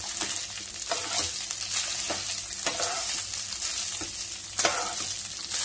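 Slotted spatula stirring and scraping peanut rice in a nonstick pan, in irregular strokes about every half second to a second, over a steady hiss of frying.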